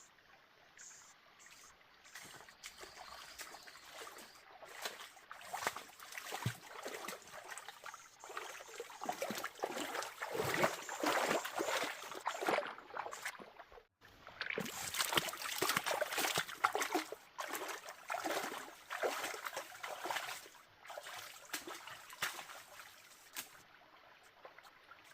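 Water splashing and trickling, growing louder and irregular in the middle and breaking off sharply about halfway before starting again.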